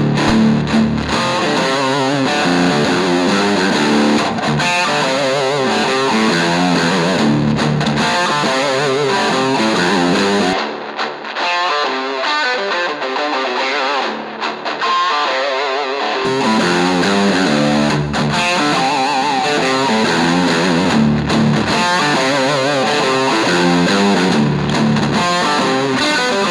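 Overdriven electric guitar playing a distorted riff. About ten seconds in, the lowest notes drop away for some five seconds, leaving a thinner sound, then come back.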